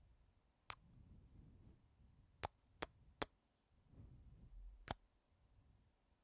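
Five quick kisses smacked close to the microphone, unevenly spaced, over faint breathing.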